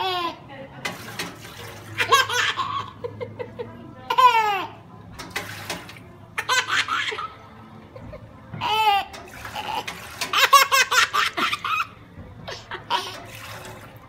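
A baby laughing hard in repeated bursts of squealing giggles, several of them sliding down in pitch, over the steady trickle of a small water fountain.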